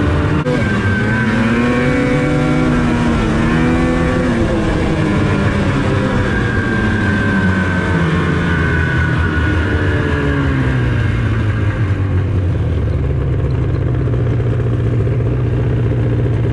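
Ski-Doo Rev Renegade 600 HO SDI snowmobile's two-stroke twin engine running while the sled is ridden, its pitch rising and falling with the throttle, then settling to a steady lower note in the last few seconds.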